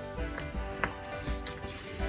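Background music with a steady beat, and one sharp click a little before the middle.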